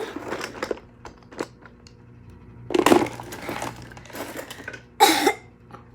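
Things being rummaged through in a box by hand: scattered clicks and knocks, with a louder rustle about three seconds in and another near the end.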